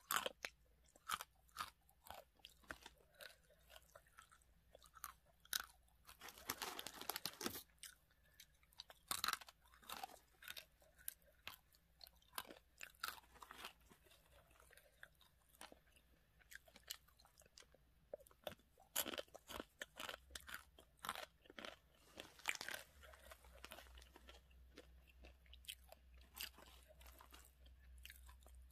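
Close-up crunching and chewing of crushed, seasoned, uncooked instant ramen noodles: irregular sharp crunches, denser in a couple of short stretches.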